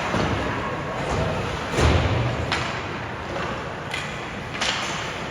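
Several knocks and thuds from play during a youth team game, echoing in a large hall, the loudest a heavy thud about two seconds in.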